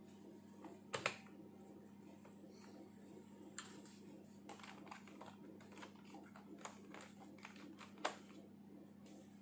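Scattered light clicks and taps of a laptop's plastic case and a small screwdriver being handled during reassembly. The loudest are a quick pair about a second in and a single click near the end, over a steady low hum.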